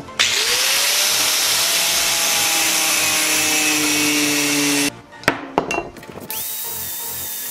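DeWalt angle grinder spinning up and grinding a steel gear shift lever, the disc's pitch rising at the start and then holding steady. It cuts off sharply about five seconds in, followed by a few clicks and knocks as the lever is handled.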